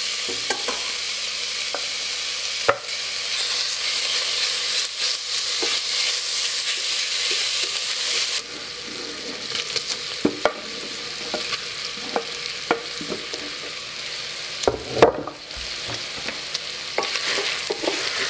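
Diced bacon frying in a stainless steel pot, sizzling steadily, with clicks and scrapes of stirring and of chopped onion being scraped in off a wooden board. The sizzle drops in level about halfway through and is quieter for the rest.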